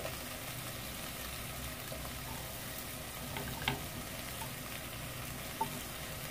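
Diced potatoes sizzling steadily in a little oil in a nonstick pan, stirred with a wooden spatula. The spatula taps the pan twice, a little past the middle and near the end.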